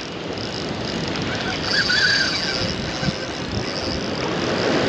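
Surf washing against jetty rocks with wind, a steady rushing noise, and faint bird calls about two seconds in and again near the end.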